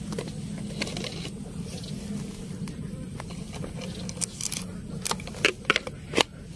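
Sharp plastic clicks and knocks from hands working a homemade PVC-pipe fishing air gun, coming several times in the second half, the loudest near the end, over a steady low hum.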